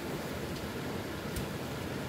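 Steady rushing background noise, with one faint click about a second and a half in.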